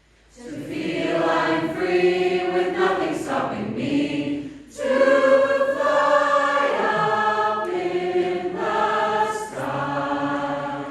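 Choir singing, several voices holding and moving between sustained notes. It begins about half a second in and breaks off briefly near the middle before going on.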